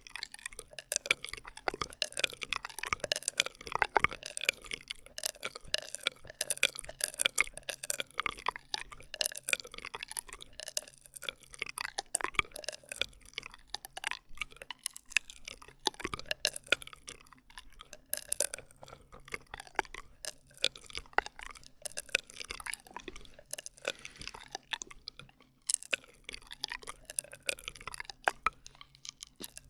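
ASMR straw sounds: plastic drinking straws being handled, giving a dense, unbroken stream of sharp wet clicks mixed with short squeaky tones that slide up and down in pitch.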